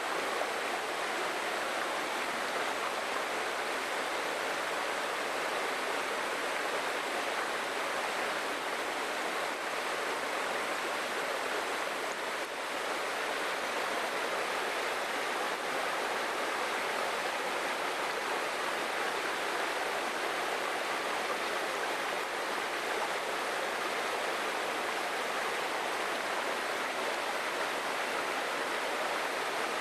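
Small forest waterfall splashing and rushing, a steady, even roar of falling water.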